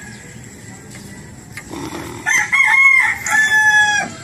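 A rooster crows once, a long call of about two seconds beginning about halfway through.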